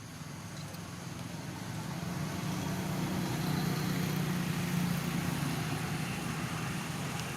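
A motor vehicle's engine running as a steady low hum, growing louder over the first few seconds and then holding.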